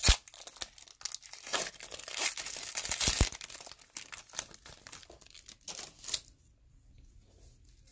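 Foil wrapper of a Score football trading-card pack being torn open and crinkled, with a sharp crackle at the start and a loud rip about three seconds in. The crackling thins out and stops about six seconds in.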